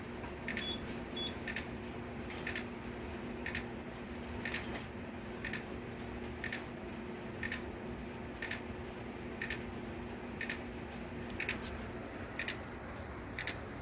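A relay inside the Simplex 4010 fire alarm panel clicking about once a second, in time with the flashing strobe, while the panel is still resetting. A faint steady hum lies beneath.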